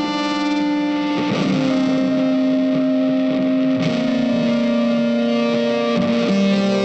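Background music: electric guitar with distortion, holding long notes that change every second or two.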